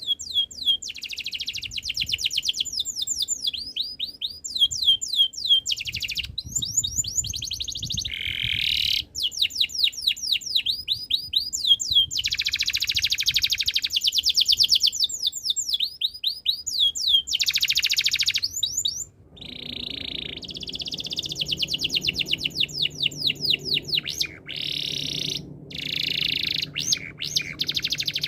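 Domestic canary singing a long, nearly continuous song of fast trills and rapidly repeated high whistled notes, broken by brief pauses.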